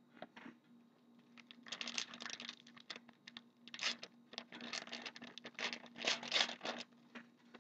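Trading cards being handled and shuffled through by hand: a run of quick rustling, scraping strokes starting about two seconds in, card edges sliding over one another.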